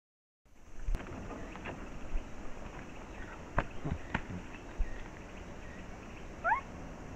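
Steady hiss from a camera's microphone with a few sharp clicks about three and a half and four seconds in, as a Japanese macaque moves right up against the camera. Near the end there is one short call that rises in pitch.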